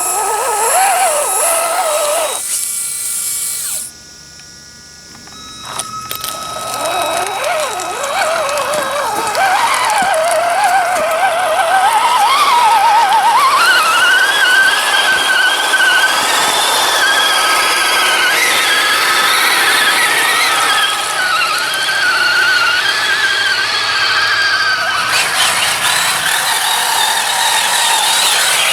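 Axial SCX10 1/10-scale RC truck's electric motor and gears whining, the pitch rising and falling with the throttle as it drives through thick mud. It goes much quieter for about two seconds near the start, then picks up again and climbs higher about halfway through.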